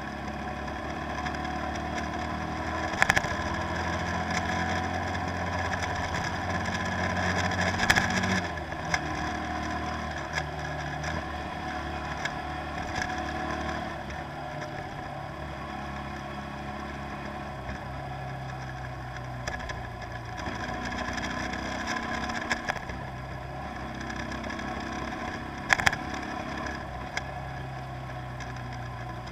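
Tour boat's engine running steadily, its pitch shifting slightly now and then. Three sharp knocks stand out above it: one a few seconds in, one about eight seconds in, and one near the end.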